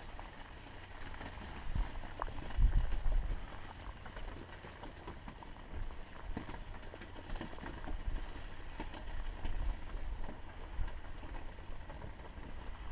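Maple syrup at a rapid boil in a pot over an open wood fire, close to its finishing temperature of about 104 °C, with the fire crackling in scattered clicks. Wind buffets the microphone in low rumbling gusts, the strongest about two and a half seconds in.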